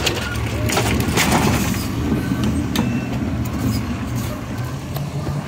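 Diesel engine of an automated side-loader garbage truck running steadily at low revs close by, with a few clanks and rattles in the first second or two.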